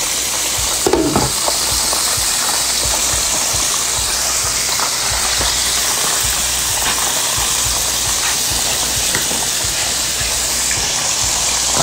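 Chicken pieces frying in hot oil in a pan on the stovetop, with a steady crackling sizzle.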